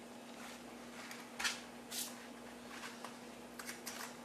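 Faint kitchen handling noises: a few short rustles and light clicks over a steady low hum.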